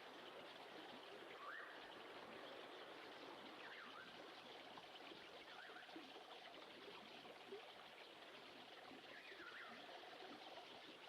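A faint nature recording of a trickling stream: an even watery hiss with a few short, swooping bird chirps scattered through it. A brief pulsed trill comes in just past the middle and again near the end.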